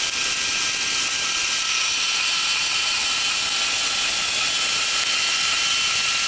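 Power tool cutting steel stock to length: a steady high hiss with a constant whine, running without a break.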